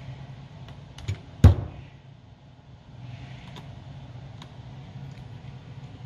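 A few sharp knocks from hard plastic and metal laptop parts and a screwdriver being handled during reassembly. A smaller one comes about a second in and the loudest half a second later, followed by a few faint ticks.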